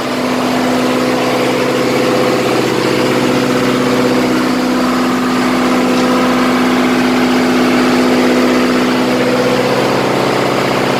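Generator engine running at a steady speed, really loud, with a constant unchanging hum.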